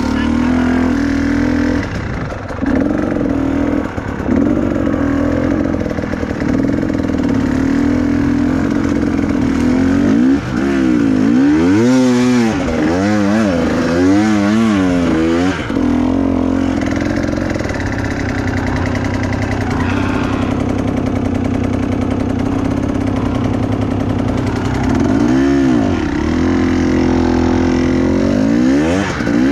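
Trail motorcycle engine idling steadily, then revved up and down in quick repeated blips for several seconds from about ten seconds in, with more short rev blips near the end.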